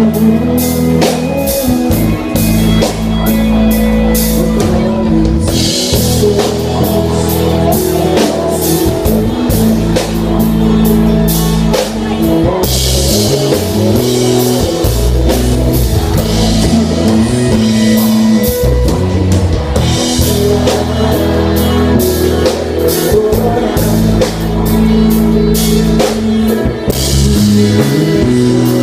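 Live rock band playing through a PA: electric guitars, bass guitar and a drum kit with cymbals, with a singer's voice over them.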